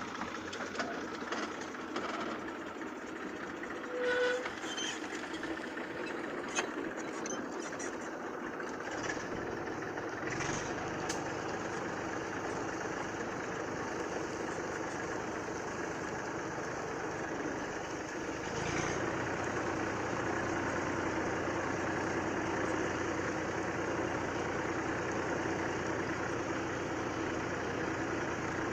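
IMT 539 tractor's three-cylinder diesel engine running steadily, with a few light clicks in the first seconds. Its low rumble grows fuller about a third of the way in and again about two-thirds of the way in.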